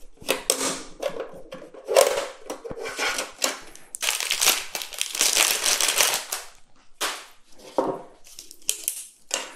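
Plastic handling noises: clicks and scrapes as a hard-drive tray is pulled from a two-bay NAS and handled, with a longer crinkling rustle about four seconds in.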